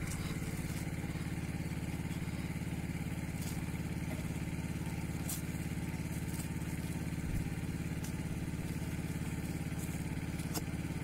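Small engine of the syrup transfer pump running steadily at an even speed.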